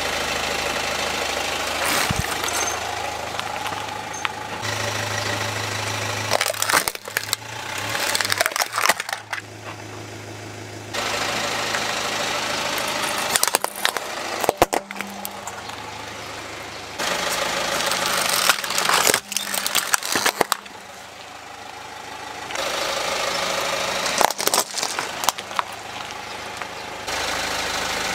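A car engine running at idle while the car's tyre rolls over and crushes plastic toys and other objects, giving several clusters of sharp cracks and snaps. The engine sound changes abruptly in level a few times between short takes.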